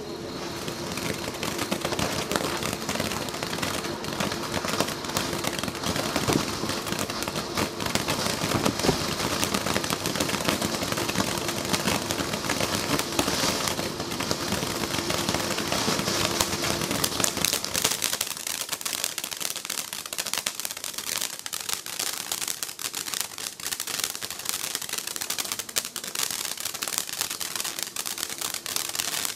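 Windmill Brand 'Rock Your Heart' firework fountain spraying sparks, with dense rapid crackling. A steady hum sits under the crackle for the first two-thirds, then drops away while the crackling goes on.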